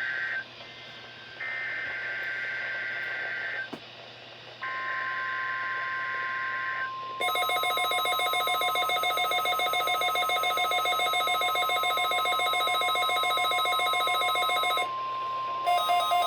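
NOAA Weather Radio test alert tones. The end of one screeching SAME digital header burst is followed by two more, each about two seconds long with short gaps. A steady alarm tone near 1 kHz starts about four and a half seconds in. From about seven seconds a loud electronic alert pulses over it at about four beats a second; it breaks off near fifteen seconds and starts again, faster, just before the end.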